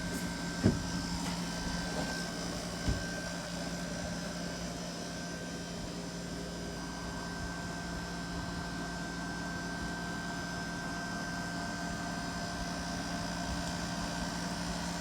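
Dehumidifier running with a steady hum and a thin, high steady tone. Two short knocks, one under a second in and one about three seconds in.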